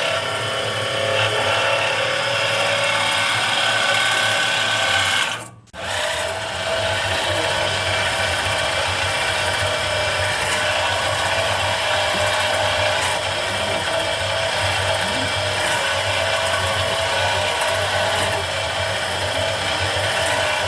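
CNC engraving and cutting machine's spindle running and cutting, a steady whining, grinding machine noise. It drops out briefly about five seconds in, then carries on.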